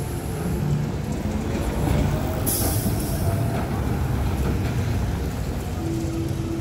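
Street traffic rumble as a New Flyer XT40 electric trolleybus pulls past and away, with a short hiss of air about two and a half seconds in.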